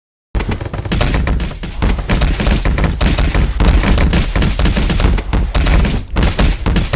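Sound effect of rapid, sustained gunfire: dense overlapping shots with a heavy low boom, starting abruptly out of silence just after the start.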